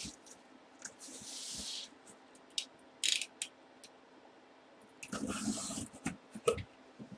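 A cardboard box being sliced open with a blade and handled: a hissing scrape about a second in, a couple of sharp clicks, and a longer rustling scrape with soft knocks about five seconds in.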